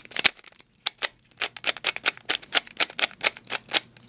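Rubik's brand 3x3 cube being turned quickly by hand, its plastic layers clacking in a fast, irregular run of clicks with a short pause under a second in. The cube has just been lubricated with CRC spray and broken in.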